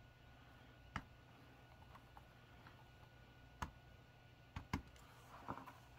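About five faint, sharp clicks and taps spread over a few seconds as a plastic super glue bottle's nozzle is dabbed onto the tabs of a thin wooden ring on a cutting mat, against faint room tone.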